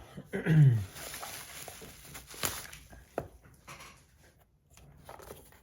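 Packaging being handled during unboxing: rustling with scattered light clicks and one sharper click about two and a half seconds in. A short falling vocal sound comes about half a second in.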